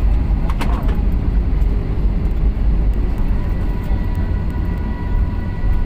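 Cabin noise inside an Airbus A320-family jet rolling on the runway after touchdown: a loud, steady deep rumble of the engines and the landing gear on the runway, with a faint steady whine above it.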